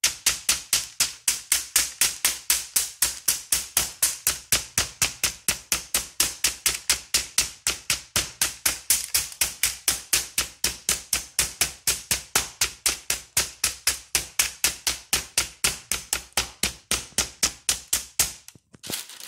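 Metal meat mallet pounding a steak laid between sheets of parchment paper, tenderizing it: rapid, even strikes, about four a second, that stop near the end.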